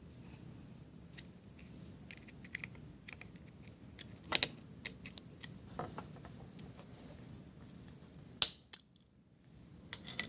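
Sharp flathead screwdriver prying open the small plastic housing of a lamp cord's inline switch: scattered light clicks and scrapes, with a sharper snap about four and a half seconds in and another about eight and a half seconds in.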